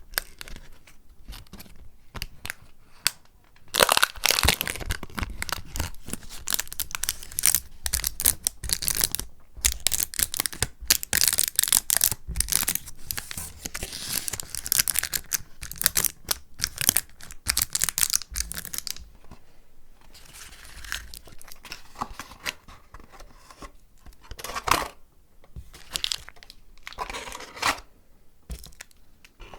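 Paper being torn and crinkled by hand close to the microphone. About four seconds in a long stretch of dense crackling tearing begins, then it thins out to separate shorter rips about two-thirds of the way through.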